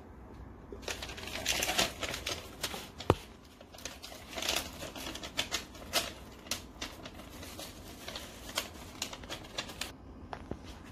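Hands working on a round-bottle labelling machine: an irregular run of clicks and crinkly rustling, with one sharp click about three seconds in.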